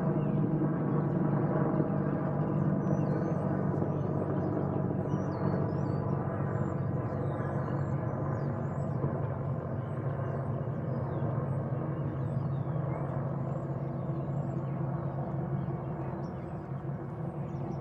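Large military helicopter flying past, its rotors and engines making a steady drone of many layered tones that slowly fades as it moves away. Faint bird chirps over it.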